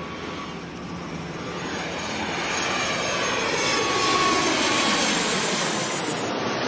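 Jet aircraft passing overhead: its engine noise swells to a peak about four seconds in and then fades, with sweeping tones that shift in pitch as it passes.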